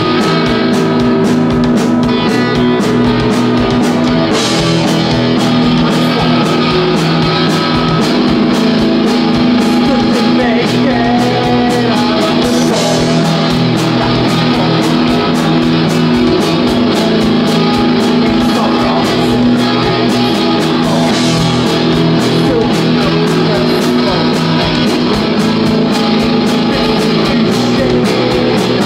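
Rock band playing live: electric guitar, bass guitar and a Ludwig drum kit, loud and steady.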